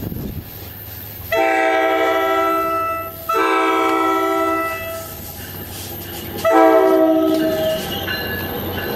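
Air horn of a New Jersey Transit ALP45DP locomotive sounding three long blasts, each a chord of several steady tones, as the train approaches. The locomotive's running rumble grows as it passes close near the end.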